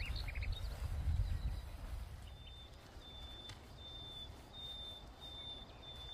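Outdoor ambience: a low rumble, with a few short bird chirps at the start. From a little past two seconds in, a high, steady note repeats evenly, about three times every two seconds.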